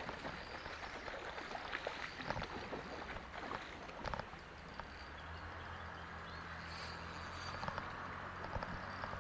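Small river running over a stony bed, with close clicks and knocks of tackle being handled for the first few seconds. From about five seconds in, a low steady hum joins the water sound.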